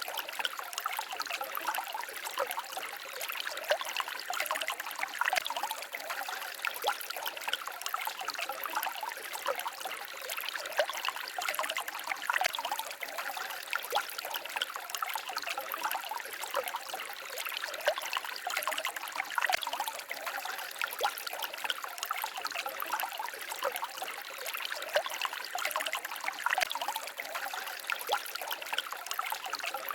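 Small forest stream babbling and trickling steadily over stones, a dense patter of small splashes with no pause.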